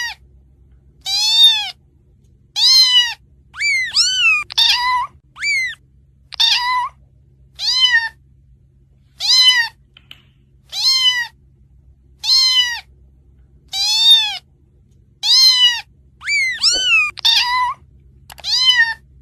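Kitten meowing again and again: high mews that rise and fall in pitch, about one every second and a half, some coming in quick pairs.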